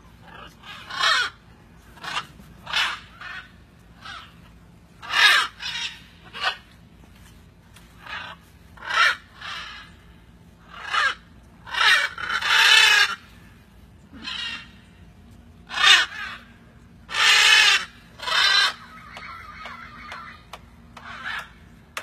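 Blue-and-yellow macaws squawking: about twenty harsh calls one after another at uneven intervals, most short, a couple drawn out for nearly a second.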